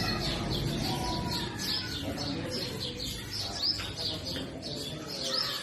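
Purple sunbirds chirping: a dense run of short, high chirps several times a second, with softer, lower calls beneath.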